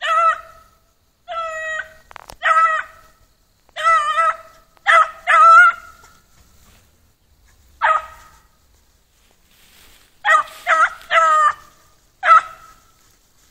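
Beagle puppy giving tongue in a string of about a dozen short, high bays in uneven clusters, typical of a scent hound working a trail. A single sharp click sounds a little over two seconds in.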